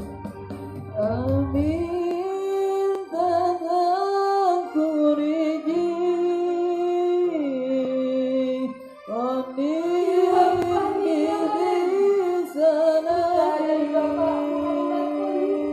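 A male student singing a slow melody solo, with long held, ornamented notes, over a steady instrumental backing; the voice breaks off briefly about nine seconds in before carrying on.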